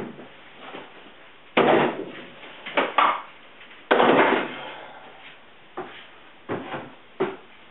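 A series of wooden knocks and clunks as cordless tools and a 1/2-inch MDF board are handled and pulled off a shelf, about six sharp knocks, the loudest around four seconds in.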